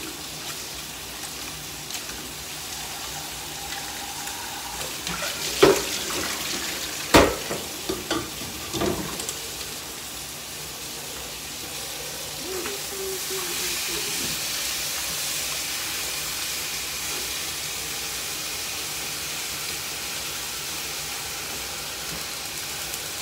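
Kitchen tap running into a colander of somen noodles as they are rinsed by hand in cold water, the stream hissing a little louder about halfway through. Three sharp knocks come between about six and nine seconds in.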